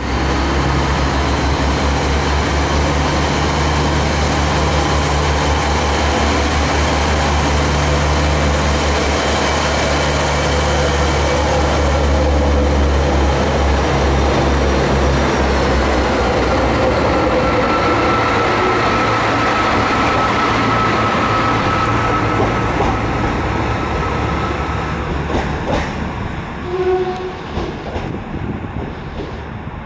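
NI Railways 3000 Class diesel multiple unit pulling away from the platform, its engines giving a loud low drone as the cars pass close by. A thin whine comes in about two-thirds of the way through. The sound then fades as the train draws away, with a few short knocks near the end.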